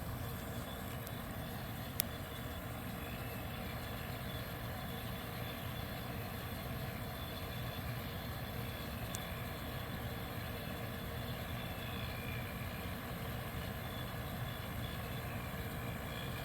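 1973 Westinghouse 25-pint dehumidifier running steadily, its fan motor and R12 compressor giving an even, quiet, smooth hum. A single short click about two seconds in.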